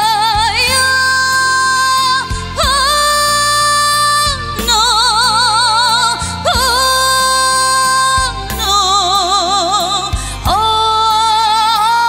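Woman singing a trot song live over a backing track: long held notes with a wide vibrato, a new phrase every two seconds or so.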